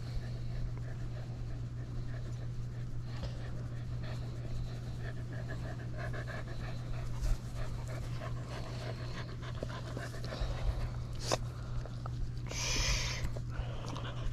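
Dogs panting in a steady rhythm over a constant low hum, with one sharp click about eleven seconds in and a short hissing burst just after.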